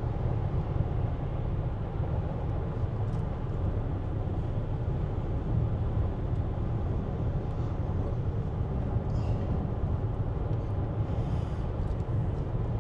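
Steady low rumble of road and tyre noise heard inside an Audi Q7 cruising at highway speed.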